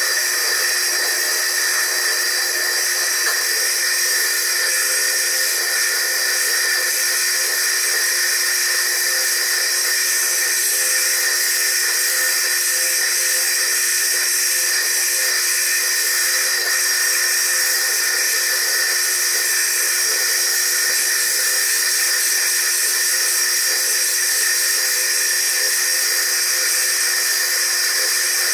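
Foredom bench lathe spinning a core drill with a wet stone held against it, grinding the stone round: a steady high-pitched whine.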